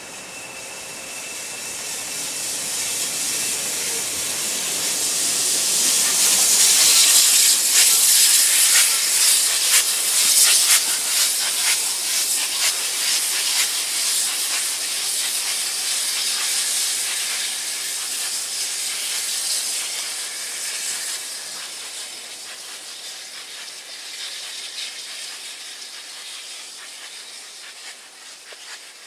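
BR Standard Class 4 2-6-0 steam locomotive passing beneath and moving away, a loud hiss of steam swelling as it goes by, with clicks of the wheels running through it, then fading into the distance.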